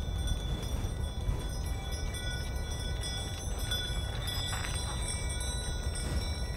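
Small bells, like sleigh bells on a horse's harness, jingling continuously over a low, even rumbling noise.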